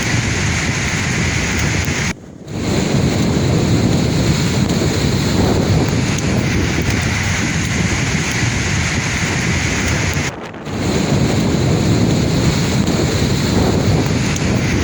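Sea waves surging and washing on the shore, with wind buffeting the microphone. The sound drops out briefly twice.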